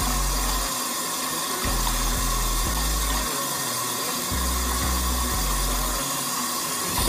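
Bath tap running in a thin steady stream into a full tub of water. Under it a low bass note from background music comes in and drops out about every two and a half seconds.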